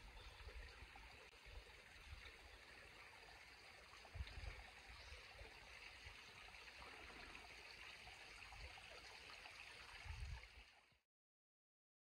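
Faint, steady rush of a stream running nearby, with a couple of low bumps of wind or handling on the microphone about four seconds in and near the end. The sound cuts off to silence just before the end.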